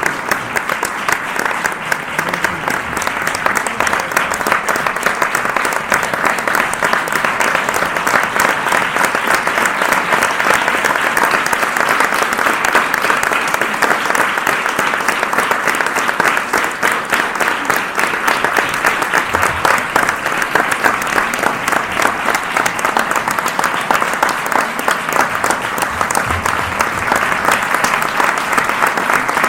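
Audience applauding: many people clapping at once in a dense, steady wash of claps.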